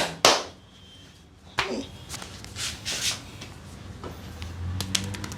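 Hand massage sounds on a person's head and skin: a sharp slap at the start, then rubbing swells, and near the end a rapid run of crackling clicks.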